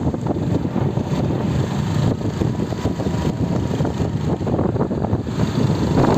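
Motorcycle engine and road noise heard while riding, a steady, rough rumble with no break.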